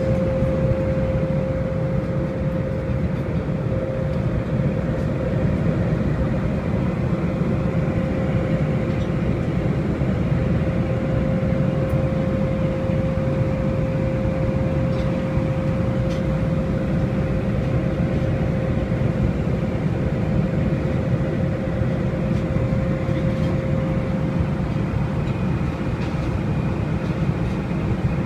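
Steady cabin noise of a Boeing 747-400 airliner in flight: an even low rush of airflow and engine noise from its four Rolls-Royce RB211 engines, with a steady tone running through it that fades near the end.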